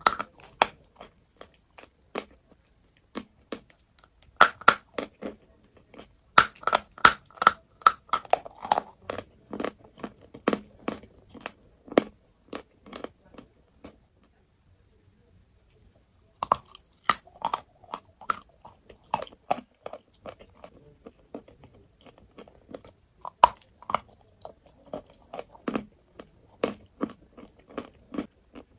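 Chunks of white and cream chalk bitten and chewed close to a microphone: dense, sharp crunching. About halfway through it stops for a few seconds, then starts again.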